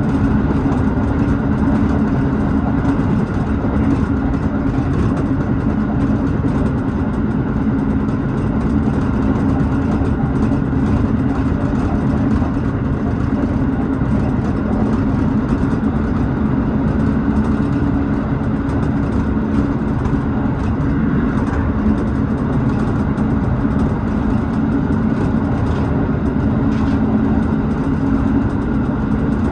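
Tobu 6050 series electric train running at a steady pace: a continuous hum of motors and wheels on the rails, heard from inside the leading car.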